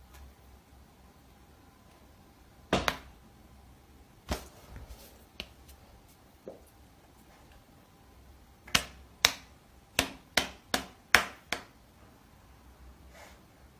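Sharp slaps of a Bengal cat's paw batting at a person's hand: a few spaced pats, then a quick run of about seven near the end.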